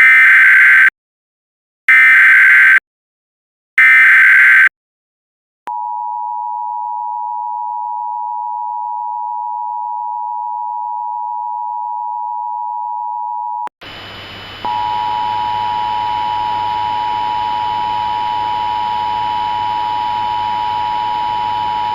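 Emergency Alert System tones: three short bursts of SAME header data, then the two-tone attention signal (853 and 960 Hz) held for about eight seconds. After a brief break a steady hiss comes in and the two-tone sounds again from about 15 seconds on, opening a civil emergency message.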